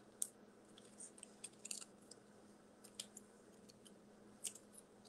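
Faint, scattered ticks and light crinkles of paper being handled, as foam adhesive dots are peeled and pressed onto a small paper circle, with near-silent room tone between them.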